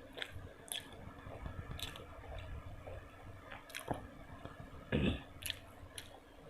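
Close-miked chewing and wet, squishy mouth sounds of food being eaten, with scattered small clicks. The loudest burst comes about five seconds in.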